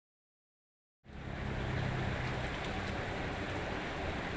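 After about a second of dead silence, a steady outdoor background noise cuts in suddenly, with a low rumble under it.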